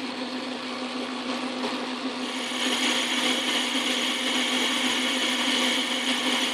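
Montgomery Wards Logan metal lathe running with a steady hum while a boring bar cuts inside a cast-iron gear. The scraping cutting noise gets louder about two and a half seconds in as the cut takes hold.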